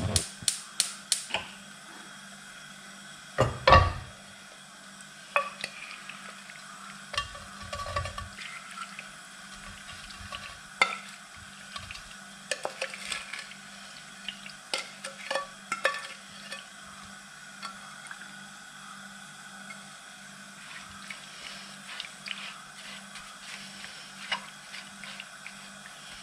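Pot and kitchen utensils clinking and knocking while sour cherries are handled for cooking down into a jam-like filling. A run of quick clicks comes in the first second and a loud knock about three and a half seconds in, with scattered clinks after that over a steady low hum.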